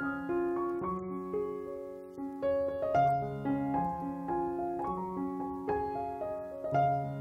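Background piano music: a gentle melody of single notes struck one after another, several a second.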